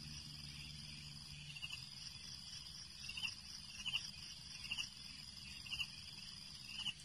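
Faint, steady, high-pitched insect chirring with short chirps about once a second; a low hum underneath stops about a second and a half in.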